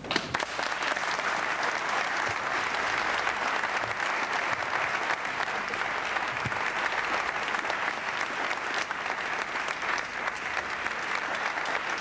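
Audience applauding: dense, steady clapping that breaks out suddenly at the start.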